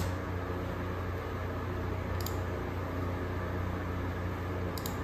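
Steady low hum and hiss of a laptop's cooling fan, with a few light clicks: one at the start, a quick pair about two seconds in, and another pair near the end.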